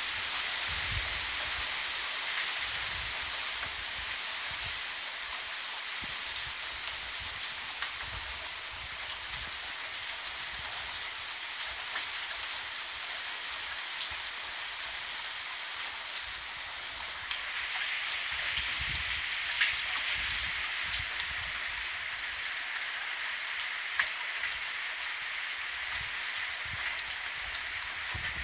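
Steady rain falling: an even hiss of drops with scattered sharper drip clicks. It grows a little louder about two-thirds of the way through.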